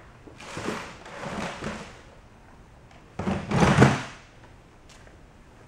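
Someone rummaging out of view for a roll of tape: two scraping, sliding noises, the second about three seconds in, louder and about a second long.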